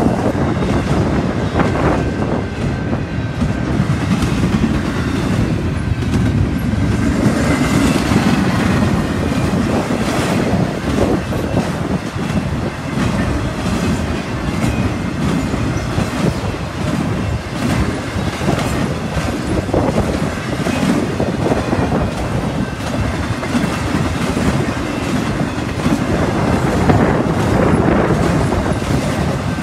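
Long BNSF intermodal freight train of double-stack container cars and trailer flatcars rolling past. Steel wheels on rail make a steady rumble with repeated clicking.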